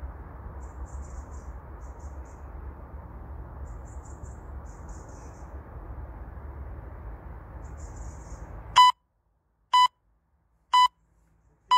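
Steady low outdoor background hum with faint high chirps, then a workout interval timer's countdown: three short electronic beeps about a second apart, and a longer beep starting at the very end, marking the end of the timed stretch hold.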